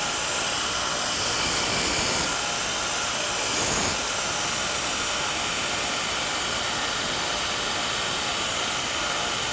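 Power grinder running steadily while it grinds the corners of a steel pritchel's striking surface into a rounded radius, a continuous grinding hiss whose upper part shifts a couple of times in the first four seconds as the steel is worked against it.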